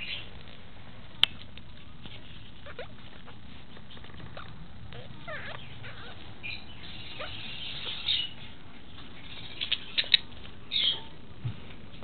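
A small pet bird knocking a little ball about: scattered sharp clicks and taps, one about a second in and a quick cluster near the end, with a few short soft chirps in between.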